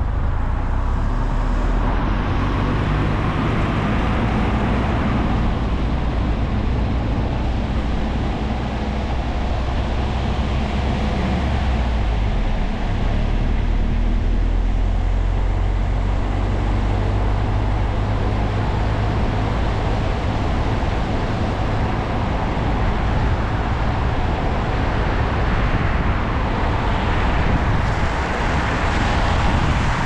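Car driving on a wet road: a steady low engine drone under tyre noise, the engine note shifting about twelve seconds in.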